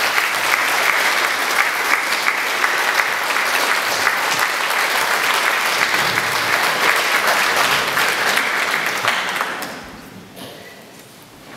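Audience applauding steadily; the clapping dies away about nine and a half seconds in.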